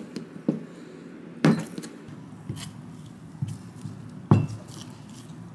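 Chef's knife cutting through a block of butter and knocking down onto a plastic cutting board: several sharp knocks spaced about a second apart, the strongest a little after four seconds in.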